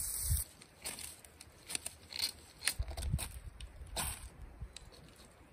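Dry tinder of hanging lichen, dead needles and twigs handled and pressed together by hand, crinkling and snapping in small irregular crackles.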